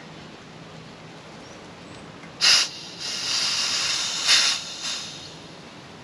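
Pressurised nitrogen hissing out through the blue side of a refrigeration manifold gauge set as the valve is cracked to bleed the test pressure off the line: a short sharp burst about two and a half seconds in, then a steadier hiss for about two seconds that swells once and ends with a brief puff.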